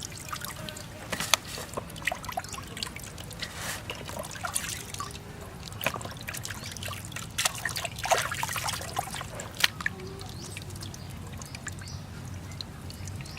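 Water trickling and splashing in short bursts, with light clicks and knocks scattered through.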